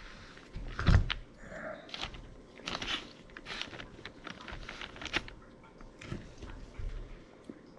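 Hands working a rubber CV boot onto a Honda CRX axle: scattered rubbing, crinkling and clicking, with one louder knock about a second in.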